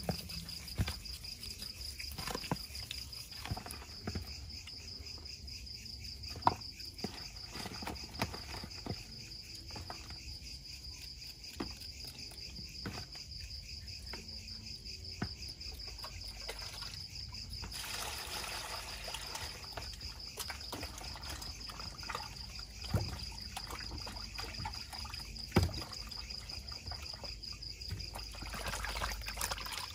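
Crickets chirping in a steady high pulsing trill, with scattered sharp clicks and knocks from hands working chicken pieces in a plastic basin and a knife peeling ginger. Near the end there is wet rubbing as the salted chicken is washed in water.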